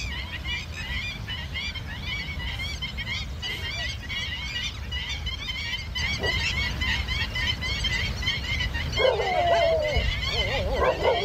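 Rapid, continuous high chirping of small birds over a low rumble. About nine seconds in, a louder wavering animal call falls in pitch and comes again just before the end.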